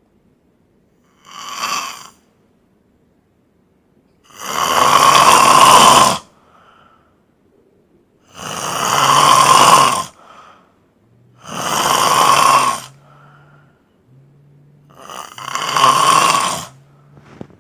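A man snoring heavily in his sleep: one faint snore, then four long, loud, rasping snores about every three and a half seconds, each lasting around two seconds.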